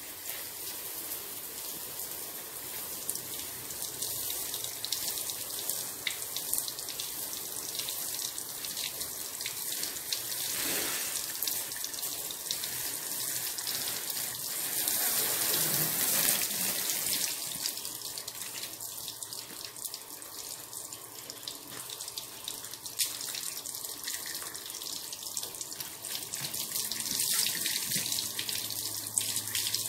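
Water spraying from a garden hose nozzle onto a car's body: a steady hiss of spray with splashing off the panels, swelling louder about halfway through.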